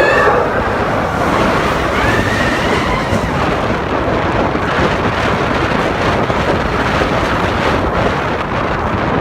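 Roller coaster train running fast along its track, a steady loud rumble of wheels on rail mixed with wind rushing over the microphone at the front seat.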